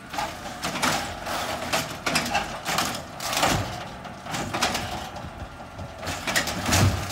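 Automated side-loader garbage truck running at the curb while its hydraulic arm handles a wheeled trash cart, with repeated short hisses and knocks over the steady engine.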